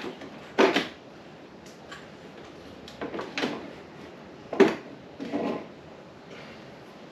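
Clunks and rattles of a red chainsaw being lifted out of its wooden holder on a French-cleat tool wall. Sharp knocks come a little over half a second in and about four and a half seconds in, with smaller knocks and scrapes between.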